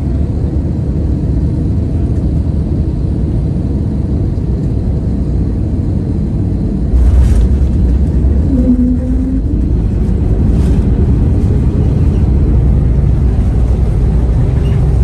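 Airliner cabin noise during landing: a steady low rumble of engines and airflow, then about seven seconds in the touchdown with a brief jolt, after which the rumble grows louder as the plane rolls down the runway.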